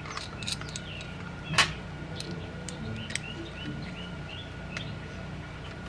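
Small birds chirping, with a run of short repeated chirps in the middle, over a faint steady high tone. Light metal clicks of a BB pistol magazine being handled with an Allen key come through, the sharpest about a second and a half in.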